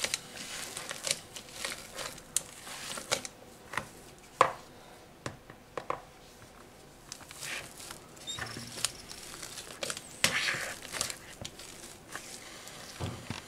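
Metal potato masher pressed repeatedly through boiled potatoes, making wet squishing strokes at an irregular pace with sharp clicks in between.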